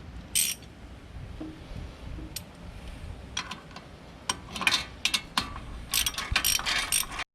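Irregular sharp metallic clicks and clatter of tools or parts being handled, sparse at first and coming thick and fast in the last three seconds.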